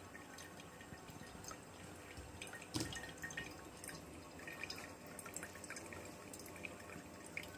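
Water from a small power-head filter's return line dripping and trickling faintly into a fish bowl, with scattered drops and one louder drop about three seconds in.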